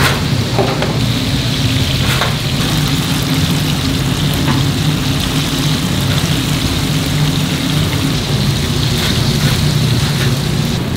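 Hot oil sizzling steadily in a deep fryer as gangjeong pieces fry, over a steady low hum.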